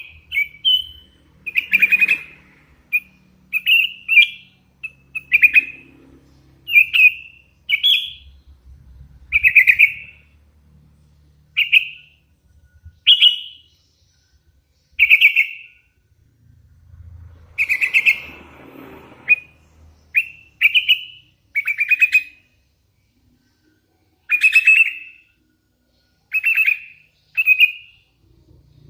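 Young hand-reared sooty-headed bulbul calling: a long series of short, clear chirps, one every second or two, some rising in pitch, with brief pauses between runs.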